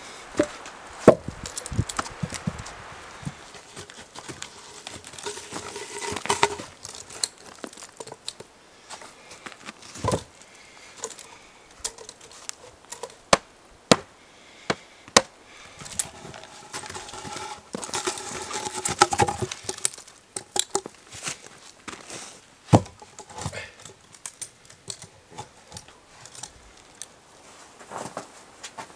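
Birch logs being stacked onto a woodpile, with irregular knocks of wood striking wood, and footsteps crunching in snow between them.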